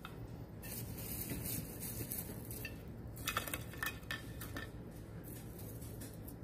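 Pieces of fried okra being set by hand onto a plate: a few light clicks and taps against the plate, most of them a little past the middle.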